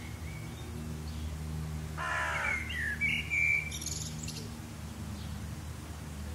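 Rural garden ambience: a crow caws once, harshly, about two seconds in, and small birds chirp and twitter just after it, over a steady low hum of distant road traffic.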